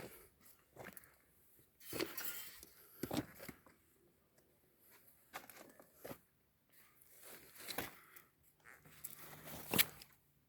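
Footsteps crunching and scuffing irregularly on loose ground.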